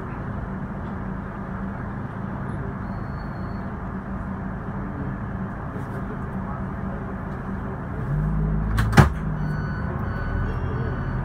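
Scania K320IB bus's diesel engine heard from inside the bus, running steadily at low revs in slow traffic, then pulling harder about eight seconds in. A single sharp knock sounds just after the engine picks up.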